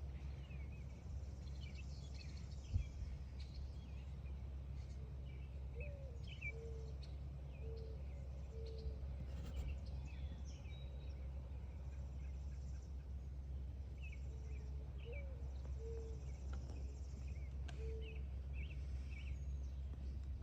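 Songbirds singing and chirping around a farm, with short high chirps throughout. A low call of a few steady notes, opening with a rising note, comes twice. A steady low rumble runs underneath, and there is one sharp thump about three seconds in.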